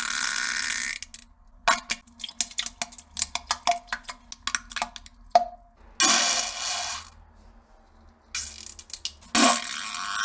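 Sounds of someone defecating: bursts of sputtering noise, about a second long, broken by a run of rapid crackles.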